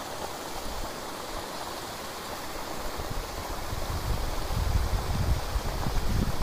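Steady rush of water spilling over a concrete weir into a pool, with a low rumble building about halfway through.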